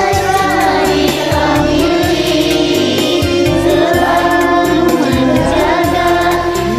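Many amateur voices singing together, men and women, layered over a karaoke backing track, as in a Smule group recording.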